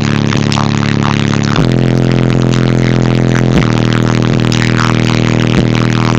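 Bass-heavy music played very loud through a car audio system with two 18-inch Incriminator Audio Death Penalty subwoofers. The deep bass notes are held steady and change about every two seconds.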